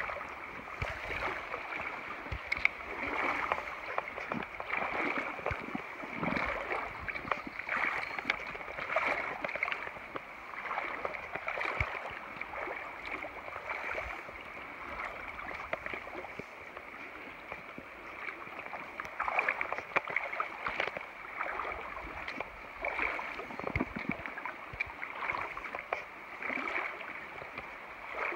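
Someone wading across a flowing river in sandals: water sloshing and swishing around the legs in uneven surges every second or two, over the steady rush of the current.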